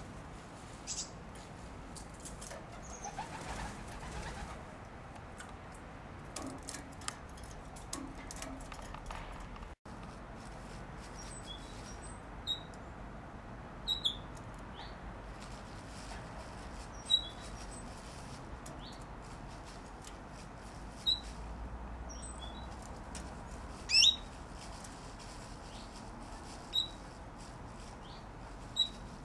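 Thin plastic sheeting crinkling and rustling as a squirrel tugs at it in a pine tree, for the first several seconds. After that, short, sharp bird chirps come every few seconds over a steady background hiss, and they are the loudest sounds.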